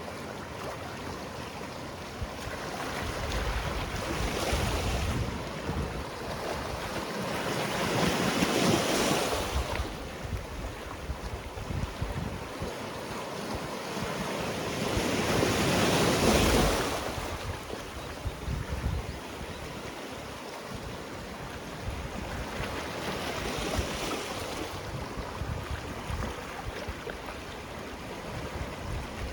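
Sea waves breaking and washing in, a steady surf hiss that swells into louder surges about four times, the biggest near a third of the way in and just past halfway.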